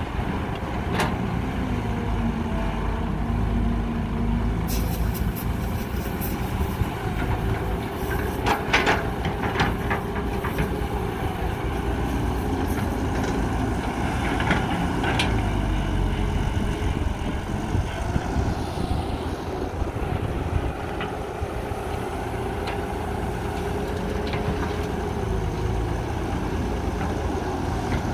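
Cat 312B hydraulic excavator running under load as it digs and swings soil into a waiting dump truck, its diesel engine droning steadily over the truck's idling engine. A cluster of sharp knocks about a third of the way in, with a few more later, as the bucket and soil strike the truck bed.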